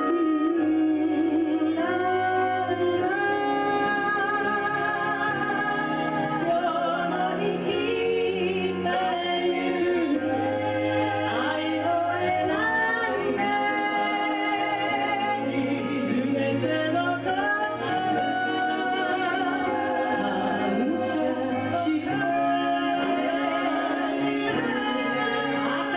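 Gospel song: a woman singing a slow melody over instrumental accompaniment.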